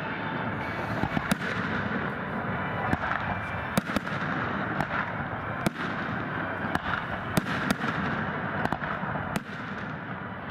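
Fireworks display: sharp bangs of shells bursting at irregular intervals, about one to two a second, over a continuous noisy background.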